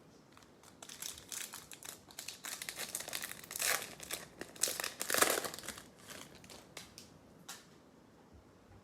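Foil wrapper of a baseball card pack being torn open and crinkled: a run of crackling from about a second in, loudest near the middle, fading by about six seconds in, then one small click.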